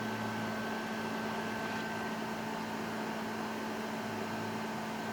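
Steady background hum with a few fixed tones over a soft hiss, like a fan or electrical equipment running in a small room; no key clicks.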